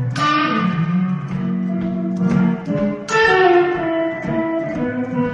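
Electric guitar played solo: a chord struck at the start and another about three seconds in, each left ringing while single notes and a moving bass line sound beneath.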